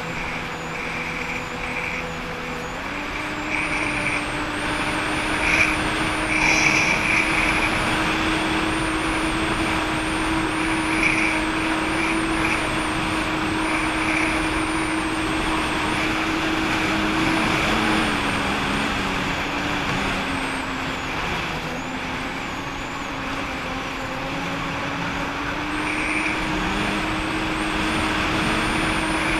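Jet ski engine running under way over rushing wind and water. Its pitch steps up about three seconds in, eases off around eighteen seconds and climbs again near the end.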